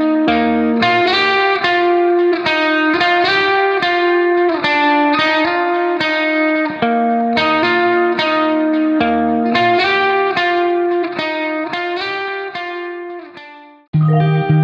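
Background music: a plucked guitar melody that fades out near the end, followed by a new track with a stronger bass.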